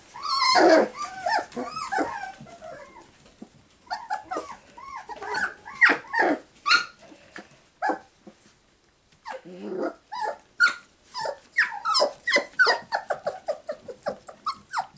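Four-week-old Cavapoo puppies crying: many short, high-pitched whines and yelps, one after another, with a brief lull about eight seconds in.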